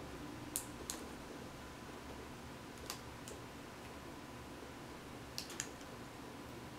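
Faint, sharp little plastic clicks and ticks, in three close pairs, from fingers working the display cable into the laptop's screen connector and handling the replacement panel.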